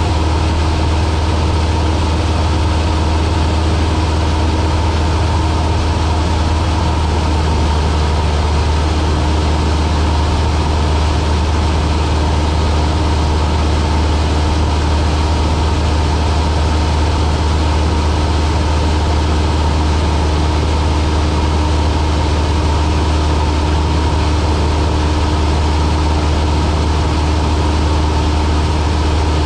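Cessna light aircraft's piston engine and propeller droning steadily and evenly, a strong low hum with no change in power.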